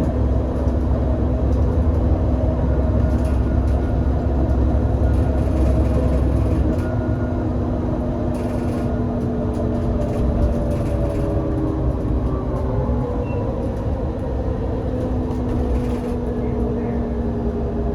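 IVECO Cursor 8 six-cylinder CNG engine of an Irisbus Citelis 18 articulated bus, heard on board. It pulls with a deep drone for the first six seconds or so, then eases off as the bus coasts. Steady whining tones run under it and fall in pitch partway through as the bus slows.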